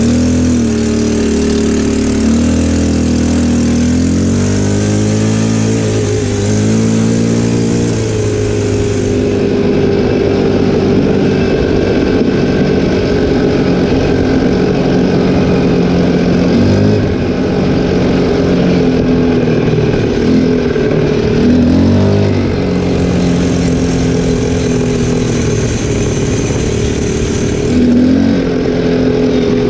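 Linhai 300cc 2x4 ATV engine running while riding, its pitch rising and falling several times as the throttle is opened and eased off.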